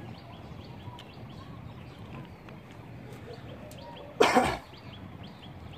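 A man coughs once, short and loud, about four seconds in, over a faint steady background.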